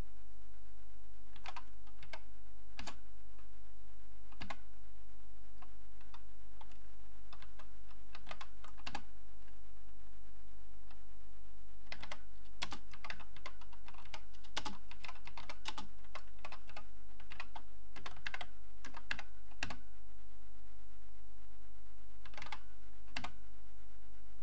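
Typing on an Acorn Electron's keyboard: a few scattered keystrokes, then a busy run of typing through the middle, and a couple more keys near the end. A steady hum runs underneath.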